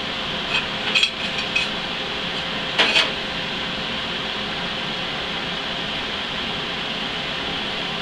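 Steel tube and angle stock clinking against a steel welding table as pieces are handled and set down: a few light clicks in the first second and a half, then a sharper double clank about three seconds in, over a steady background hum.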